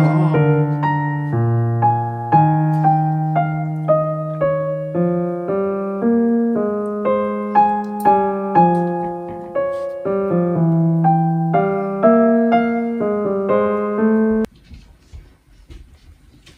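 Background piano music, a light melody of single notes over sustained lower notes, which cuts off suddenly near the end.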